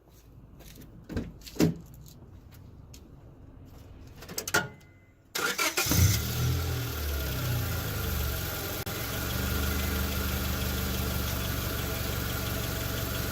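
A few sharp clicks and knocks, then a Honda Civic's four-cylinder engine cranks, catches and settles into a steady idle. The exhaust runs without the raspy leak noise, its open O2-sensor bung now sealed with a spare sensor.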